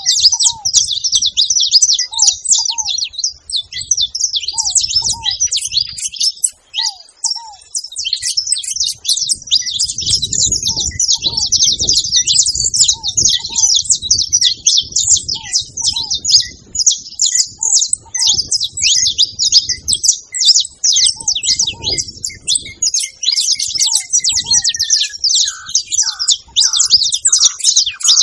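Several saffron finches chirping and singing together in a dense, continuous, overlapping chatter of high notes. A lower note sounds in pairs every second or two underneath, and a falling whistle comes in near the end.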